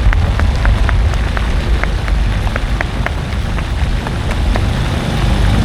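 Fireworks: scattered sharp crackles, several a second, thinning out over a few seconds above a steady low rumble.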